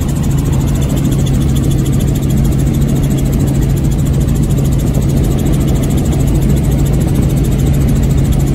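Helicopter in flight heard from inside the cabin: a steady engine and rotor drone with a constant low hum.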